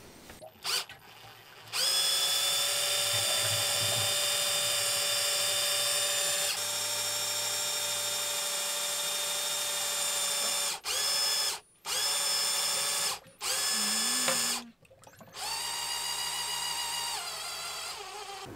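Small electric pump whining steadily as it pushes water into the heating circuit to top it up. It runs for about nine seconds, then stops and starts in three short runs of about a second each and one longer one that drops slightly in pitch near the end.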